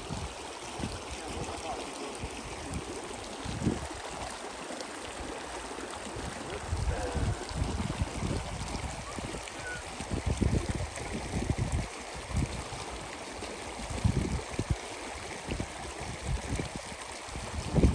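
A shallow mountain creek running and rippling over stones, with wind buffeting the microphone in irregular low gusts.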